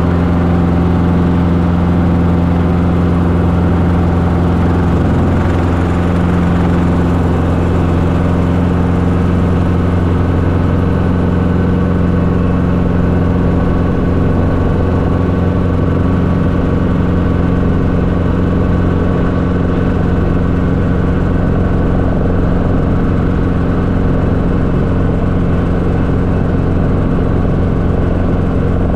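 Schweizer 269C-1 helicopter's four-cylinder Lycoming piston engine and rotors running at a steady speed: a loud, constant drone with a strong low hum and no change in pitch.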